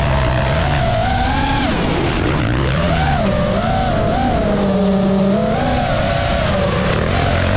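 Motocross dirt bike engine revving up and down with the throttle, mixed with the high whine of the FPV drone's propellers chasing it. Both pitches rise and fall in waves about once a second.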